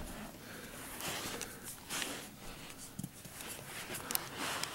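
Faint handling noises of a plastic bed bug trap being moved by hand: several brief rustles and scrapes with a few light taps.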